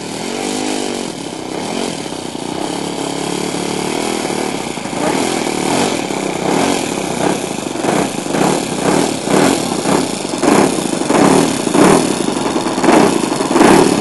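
Saito FG-11 single-cylinder four-stroke gasoline engine on a radio-controlled aerobatic model plane, running at low throttle as the plane taxis in on the grass. Its pitch rises and falls a few times in the first seconds. From about five seconds in the sound swells and fades in a regular pulse, about one and a half times a second, and grows louder toward the end.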